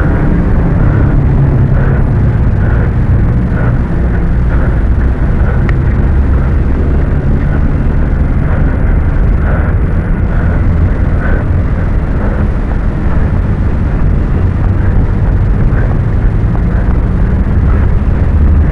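Loud, steady low rumble of road traffic beside a roadside walkway, with wind buffeting the microphone.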